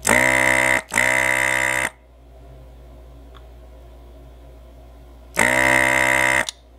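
Electric desoldering gun's vacuum pump buzzing in short bursts as its trigger sucks molten solder out of circuit-board joints: two back-to-back bursts of about a second at the start, and a third about five seconds in.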